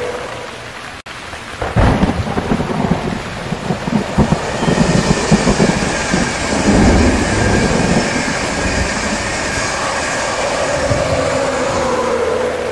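Thunder rumbling with heavy rain: a deep rumble breaks in about two seconds in and surges unevenly, with a steady hiss of rain over it. Near the end a hum slides gently down in pitch.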